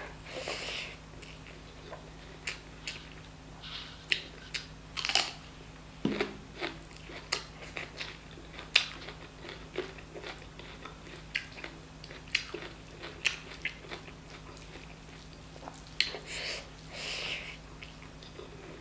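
Close-up eating sounds of chicken curry and rice: wet chewing, lip smacks and many short mouth clicks, with a few soft breaths. A single low knock comes about six seconds in, over a faint steady hum.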